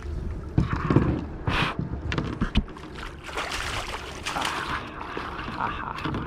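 Water splashing and sloshing beside a kayak as a hooked northern pike is brought in, with repeated short knocks and clunks of gear against the hull and one sharper splash about one and a half seconds in.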